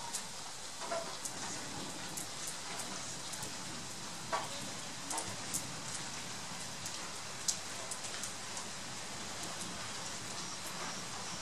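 Steady rain falling, a continuous patter with scattered louder single drop taps, a few standing out sharply.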